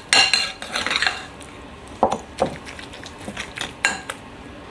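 A utensil clinking and scraping against a bowl in irregular knocks while butter is mixed with herbs, a few clinks ringing briefly. A fan oven preheating runs steadily underneath.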